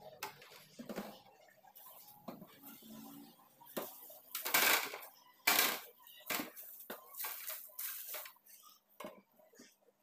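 Household items being handled and put away: irregular clinks, knocks and rustles, with two louder rustling bursts about four and a half and five and a half seconds in.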